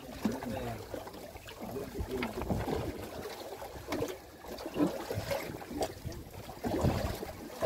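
Water sloshing against the hull of a small boat at sea, with scattered irregular knocks and clicks from fishing gear and the boat being handled. The sharpest knock comes near the end.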